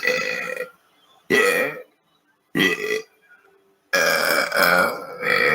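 A person burping four times in a row: three short burps of about half a second each, then a longer, drawn-out burp of well over a second.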